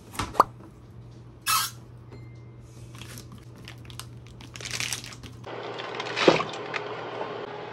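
A small refrigerator's door and freezer flap open with a couple of clicks and a short scrape. A plastic packet of frozen smoked sausages then crinkles as it is handled. Near the end there is a sharp knock as the pack meets a cooking pot, over a steady hum.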